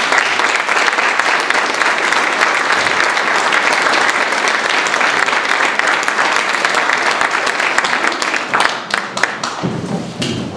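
Audience applauding steadily, thinning to a few scattered claps near the end.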